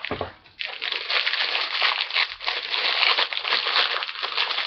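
Thin plastic wrapper of a McVitie's Jaffa Cakes packet crinkling as it is handled and pulled at, starting about half a second in and going on without a break; the packet is tightly sealed.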